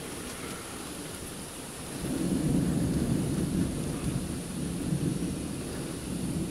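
Thunder from an overhead thunderstorm: a low rumble that swells about two seconds in and keeps rolling, over the steady hiss of rain.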